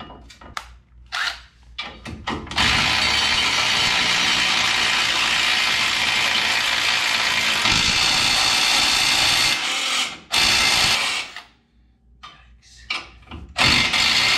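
Red cordless power tool turning bolts on the bare front frame of a pickup truck, running in long bursts: one of about seven seconds, a short one after a brief stop, and another near the end. Scattered clicks of hand work come before the first burst and between the others.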